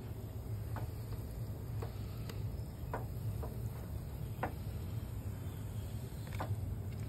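Faint, scattered crackling clicks, about six spread over several seconds, from a Styrofoam cup as acetone dissolves its bottom, over a steady low background rumble.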